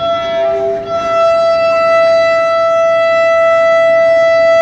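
Diesel locomotive air horn sounding one long, steady, loud blast. It starts suddenly and holds one pitch throughout.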